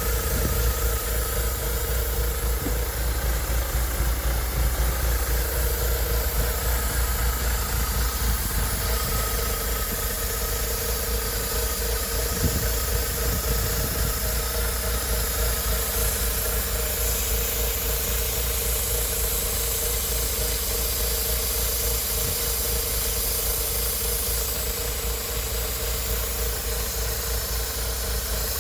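BMW Z3 1.9's M44 four-cylinder engine idling steadily, with a hiss over the running from a vacuum leak.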